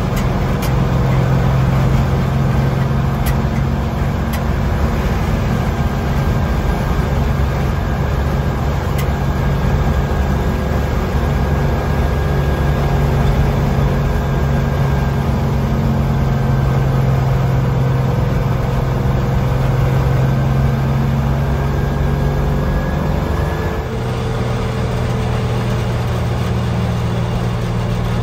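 Engine and drivetrain of a vintage M37 off-road wrecker truck running steadily at road speed, with wind and tyre noise. The engine note drops slightly about three-quarters of the way through.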